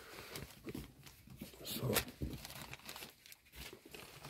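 Faint rustling and crinkling of something being handled, with a few short clicks.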